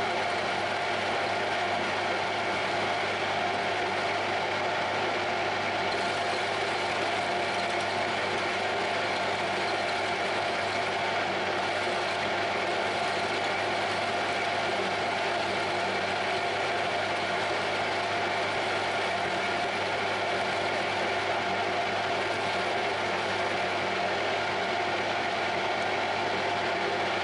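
Metal lathe running steadily with a constant whine from its gears and drive, while a parting tool plunges into a small turned metal part.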